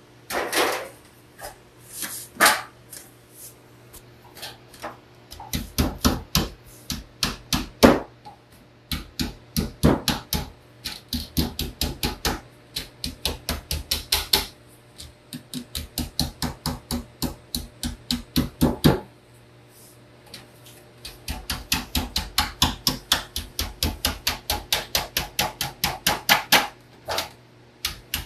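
A hammer pounding the edge of a thin metal sheet over a table edge to bend it over: runs of quick, sharp metallic strikes, about four or five a second, with a pause of about two seconds two-thirds of the way through.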